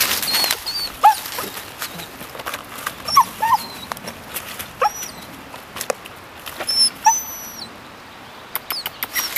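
German Shepherd puppy whimpering: short high whines, about five of them, some rising and some falling, as it stands stuck behind a fallen log it cannot climb over.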